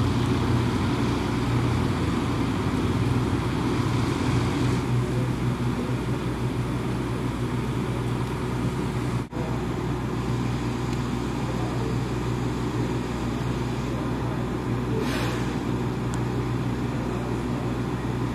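An engine running steadily with a low drone over a hiss of outdoor noise. The sound drops out for an instant about nine seconds in, and a short hiss comes about fifteen seconds in.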